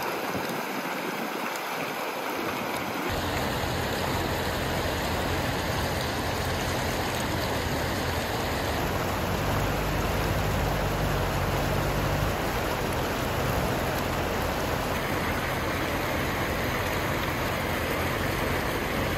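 Shallow river rapids rushing over rocks and a low weir: a steady, even rush of water, with a deeper low rumble joining about three seconds in.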